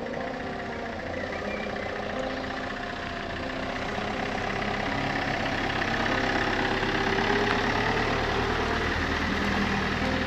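Large high-roof camper van driving slowly toward the microphone, its engine running steadily and growing louder as it comes close alongside.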